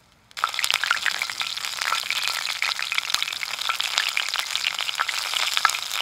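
Frozen cicadas, mostly large brown cicadas (aburazemi), coated in karaage flour and deep-frying in hot oil: a dense sizzle full of sharp pops that starts suddenly about a third of a second in and keeps going steadily.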